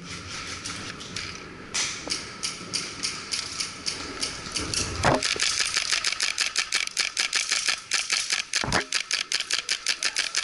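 Airsoft guns firing rapid single shots in an indoor hall. The shots come about three a second at first, then quicken to about six a second from about five seconds in, and stop suddenly at the end.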